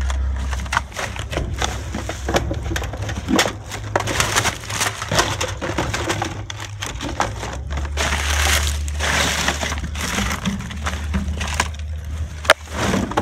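Plastic bags and packaging rustling and crinkling as hands dig through dumpster trash, in many irregular crackles, over a steady low hum.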